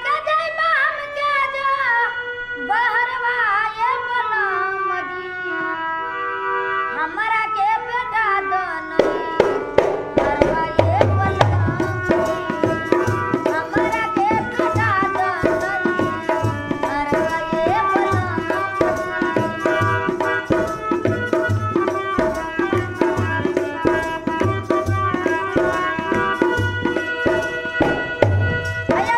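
A woman sings a Bhojpuri song to her own harmonium accompaniment, the voice gliding over steady held reed chords. About nine seconds in a dholak comes in with a quick, steady beat of sharp slaps and deep thumps, and drum, voice and harmonium play together.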